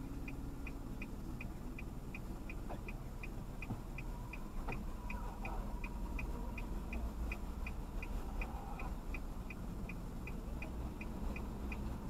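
Car turn-signal indicator ticking steadily, about three clicks a second, over the low rumble of the car cabin.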